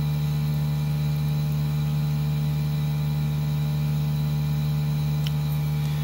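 Mini-split heat pump outdoor unit running steadily under load while heating a water tank: an even low hum with fainter higher tones above it.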